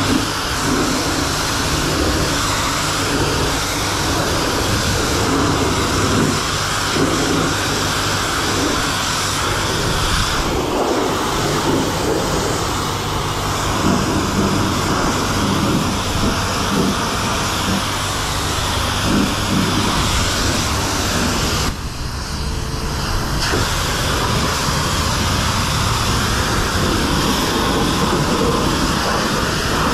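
Self-serve car wash pressure wand spraying high-pressure water against a pickup truck's body panels: a loud, steady hiss over a low hum. The spray dips briefly about two-thirds of the way through.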